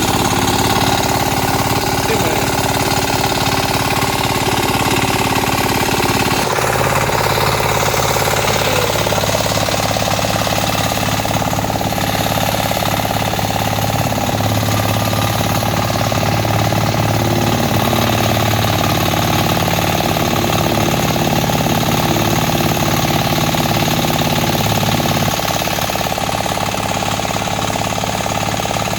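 Mini tractor's engine running steadily under load while it drags a harrow through a muddy rice field. Its note shifts about six seconds in and it gets slightly quieter near the end.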